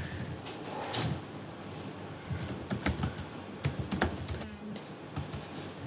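Typing on a computer keyboard: irregular key clicks with short pauses between runs.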